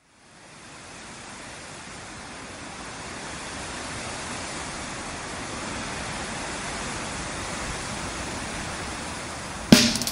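A rushing static-like noise swell fades in and holds steady as the opening of a garage rock track. Near the end, a loud crash brings in drums, bass and guitar.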